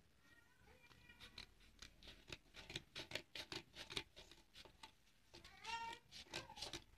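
Scissors snipping through stiff buckram interfacing, a faint run of quick snips, about three or four a second. A faint high-pitched call comes near the end.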